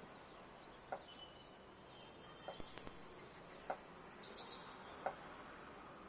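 Faint outdoor background hiss with a handful of short, scattered bird chirps and a thin high whistle-like tone.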